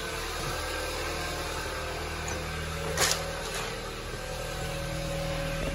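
A 2015 Hyundai Elantra's four-cylinder engine idling steadily with a newly fitted catalytic converter, with one short knock about three seconds in.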